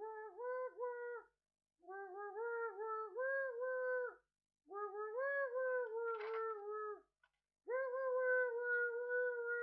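A schnauzer howling in four wavering, sing-song stretches with short breaks between them, its pitch sliding up and down like a tune.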